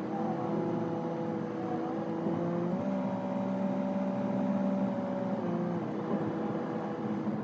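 Car engine and road noise heard inside the cabin: a steady hum whose tones step up together about three seconds in and drop back a few seconds later.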